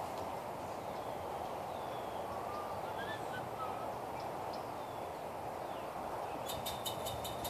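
Steady outdoor background hum with a few faint bird chirps. A quick run of sharp clicks near the end.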